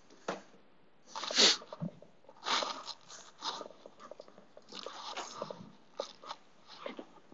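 Handling noise of a black fabric suitcase being lifted and moved close to the microphone: irregular rustling and scuffing with a few sharp knocks, loudest about one and a half seconds in.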